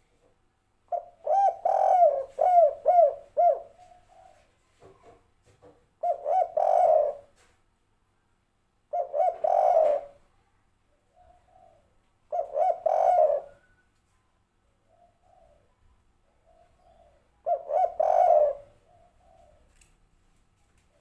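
Spotted dove cooing: five phrases of repeated low coos, the first and longest lasting about three seconds, with fainter short coos between the phrases.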